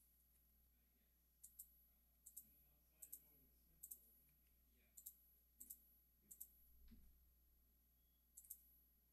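Faint computer mouse clicks, about a dozen, many in quick pairs, coming at irregular intervals over a low steady hum.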